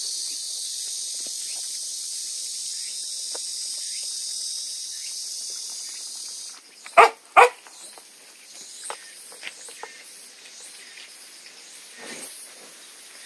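Puppies eating water-softened kibble from plastic bowls: scattered small clicks and smacks of chewing, with two sharp knocks about seven seconds in. A steady high hiss runs under the first six seconds and then stops.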